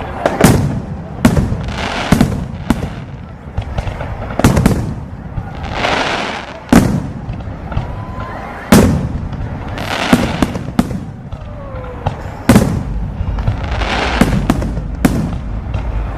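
Aerial fireworks bursting overhead: more than a dozen loud bangs at irregular intervals, each with an echoing tail, with hissing, crackling swells in between.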